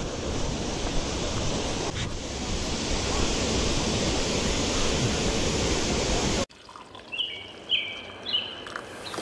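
Steady rushing noise with wind buffeting the microphone. It cuts off suddenly about two-thirds through, leaving a quiet stretch with a few short, high chirps.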